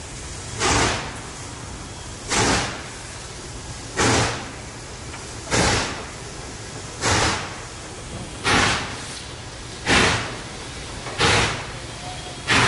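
Norfolk and Western class J 4-8-4 steam locomotive's exhaust chuffing slowly, one heavy beat about every second and a half. The beats come slightly closer together as the train gathers speed.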